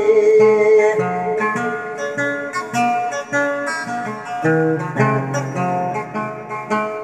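Acoustic guitar picked note by note in a melodic instrumental passage, after a held sung note with a slight waver that ends about a second in.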